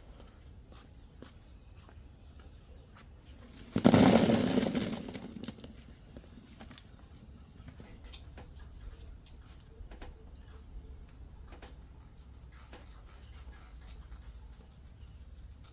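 A steady high insect drone with scattered small clicks and rustles. About four seconds in comes one loud rustling crash that fades away over about a second.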